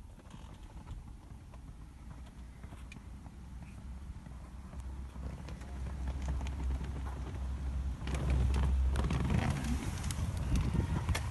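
Handling noise of a handheld recording device moved about inside a car: rubbing and small clicks over a low rumble that grows louder, with louder rustling and knocks in the last few seconds.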